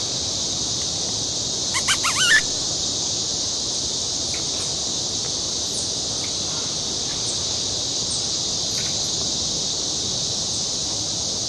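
Steady high-pitched insect chorus droning without a break. About two seconds in comes a short, loud burst of bird calls, with a few faint chirps later.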